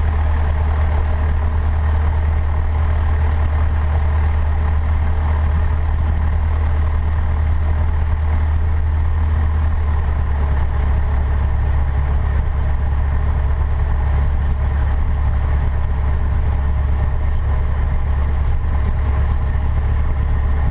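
Cessna 152's Lycoming O-235 four-cylinder engine and propeller running steadily at low power, with a slight change in the engine note about halfway through.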